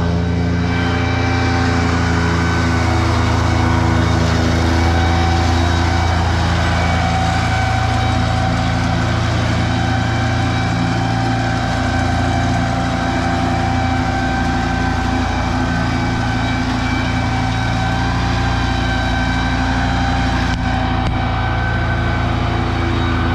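Tractor engine running steadily at an even speed, a low drone with a thin steady whine above it.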